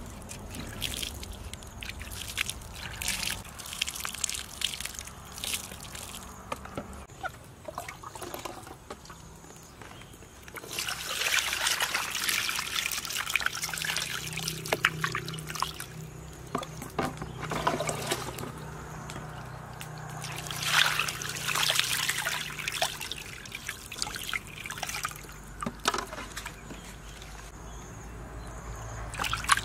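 Water splashing and sloshing in a stainless-steel basin as a whole gutted fish is rubbed and washed by hand, coming in several bursts.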